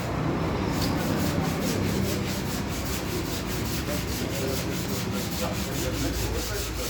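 Rapid, even rubbing from a motorcycle front fork tube as its old fork oil is emptied out.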